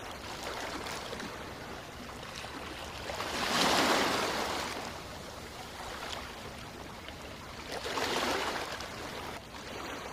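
Sea waves washing, swelling and falling back twice: a larger swell about four seconds in and a smaller one near the end.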